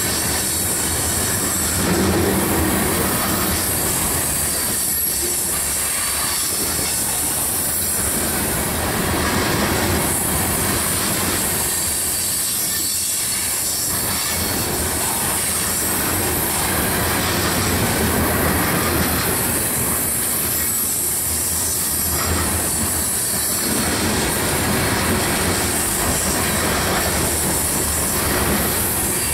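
Coal train's bathtub gondola cars rolling steadily past at close range on a curve, steel wheels on the rails with a constant high-pitched squeal of flanges grinding against the curved rail.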